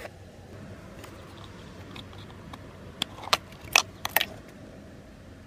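A quick run of about five sharp plastic clicks about three seconds in, as fingers pinch the latch of the steering wheel's brown multi-pin electrical connector and work it loose.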